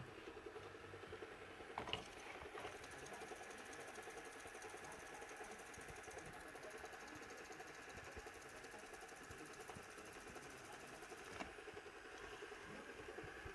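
ILIFE V7 robot vacuum cleaner running: a steady, faint motor and fan hum with a fast buzzing pulse and a thin whine above it, with a couple of light clicks about two seconds in and another near the end.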